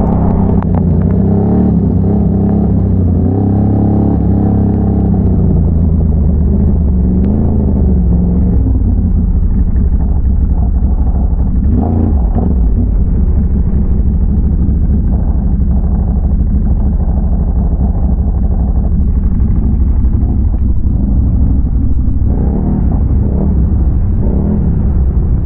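ATV V-twin engine, a big-bore Can-Am Renegade 1180, running under load on a trail ride. For the first several seconds the revs rise and fall, then it settles into a steady low drone.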